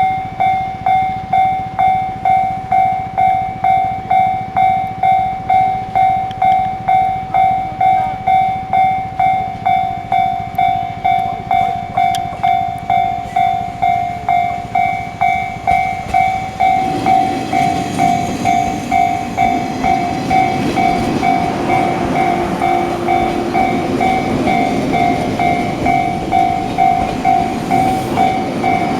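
Japanese level-crossing warning bell ringing evenly at about two strikes a second. About 17 seconds in, a passing train joins it with a rumble and wheel clatter; the uploader takes the train for a 183-series electric multiple unit.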